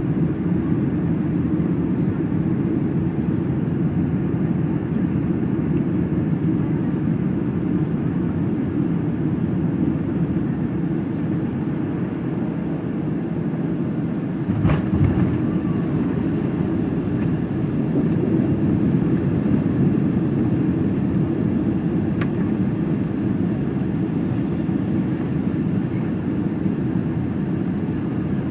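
Cabin noise of a Boeing 757 landing, heard at a window seat over the wing: a steady engine and airflow rumble, broken about halfway through by one sharp thump as the main gear touches down. The rumble swells for a few seconds afterwards as the jet slows on the runway.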